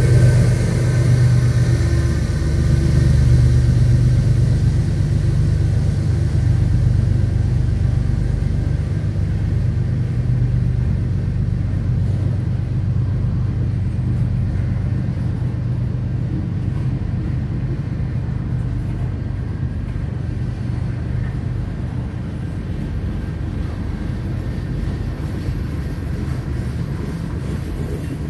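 Freight train passing close by: the rumble of a CN diesel-electric locomotive fades over the first several seconds, then the freight cars roll past with a steady rumble. A thin high-pitched squeal sets in about three-quarters of the way through.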